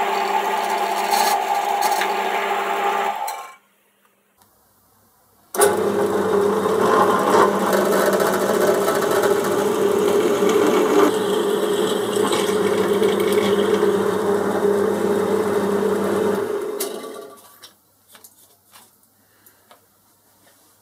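Drilling machine running, its twist drill cutting into a steel block: a short run at the start, then a longer run of about eleven seconds that stops near the end, followed by a few faint clicks.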